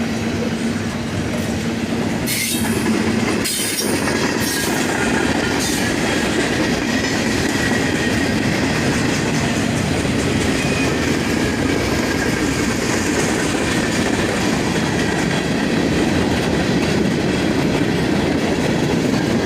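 Freight cars of a Norfolk Southern manifest train rolling steadily past: a continuous rumble of steel wheels on rail, with a couple of sharp clanks a few seconds in and a thin high wheel squeal running through.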